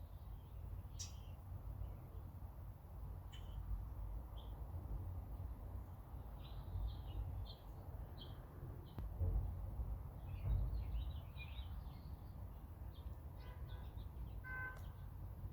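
Small birds chirping and twittering in short, scattered calls, busiest in the middle stretch, with one short pitched call near the end. A steady low rumble runs underneath.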